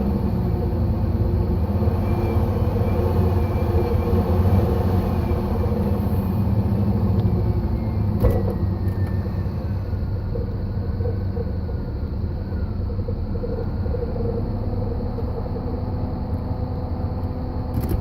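1995 Dodge Intrepid ES's 3.5 L V6 engine running steadily, with a faint wavering whine that drifts lower in pitch about halfway through and a single short knock just before it. The noise is one the owner cannot identify.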